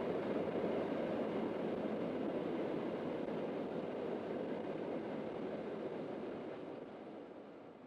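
Steady rolling noise of a railway train running along the track, fading out over the last few seconds.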